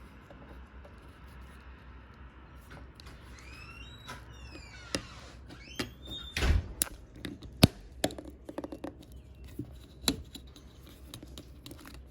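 Hand work on a boat windshield and its trim: a few short squeaks that glide up and down, scattered clicks and knocks, and one heavy thump about six and a half seconds in.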